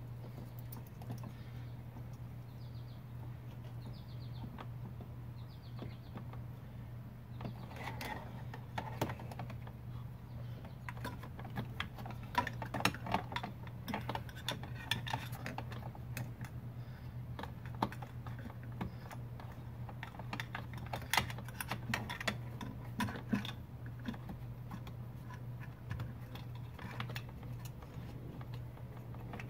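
Plastic centre-console trim of a BMW E46 being handled and clipped back in: irregular clicks and taps of the ashtray assembly, beginning about a quarter of the way in and busiest in the middle. A steady low hum runs underneath.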